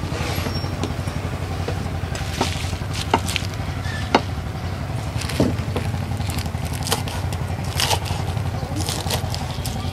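A kitchen knife slicing wild betel leaves on a plastic cutting board: irregular sharp taps and scrapes of the blade on the board, over a steady low hum.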